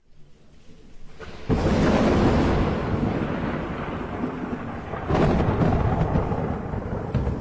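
Thunder: two loud rumbling peals, the first breaking suddenly about a second and a half in, the second about five seconds in, each dying away slowly.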